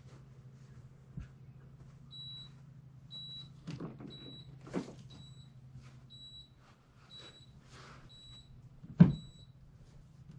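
Pelonis 50-pint dehumidifier's control panel beeping as its buttons are pressed: eight short high beeps about once a second, over a low steady hum. A few knocks are mixed in, the loudest a sharp thump about nine seconds in.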